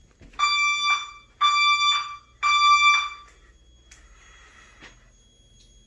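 Fire alarm sounding the temporal-three (Code 3) evacuation signal: three loud pitched tones of about half a second each, separated by short gaps.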